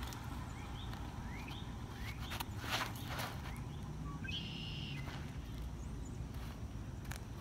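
Birds chirping with short rising calls over a steady low rumble, with a few sharp knocks and a brief noisy rush about three seconds in.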